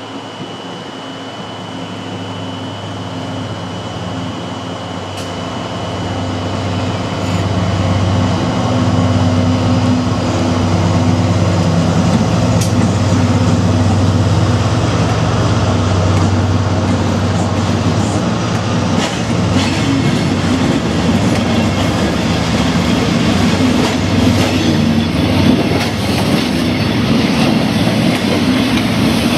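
Diesel freight locomotive passing close by, its engine drone growing louder over the first ten seconds. Then the loaded timber wagons roll past, rumbling and clacking over the rail joints, with a faint high wheel squeal near the end.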